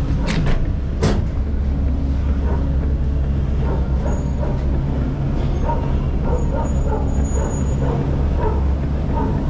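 Steady low hum of a moving cable car cabin, with two sharp knocks in the first second. Faint short calls sound in the background from a few seconds in.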